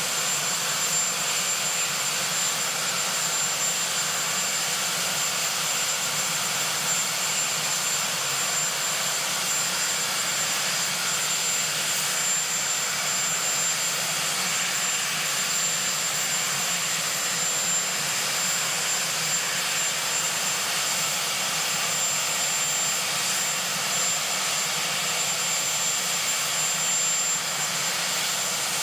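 Sikorsky VH-3 Sea King (Marine One) twin turboshaft engines running steadily on the ground: an even rushing roar with a thin, high, constant turbine whine.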